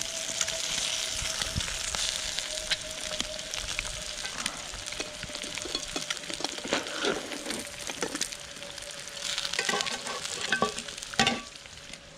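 Eggs, bacon, potatoes and onions sizzling in a steel fry pan over a campfire, with a fork scraping and stirring in the pan. Near the end come several metallic clinks as a steel plate is set on the pan as a lid, and the sizzle turns duller.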